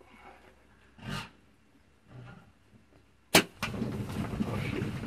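Two short wildebeest grunts, then a single sharp crack of a Mathews compound bow being shot. At once the herd of blue wildebeest and zebra bolts, their hooves making a steady thundering rumble on the dry ground.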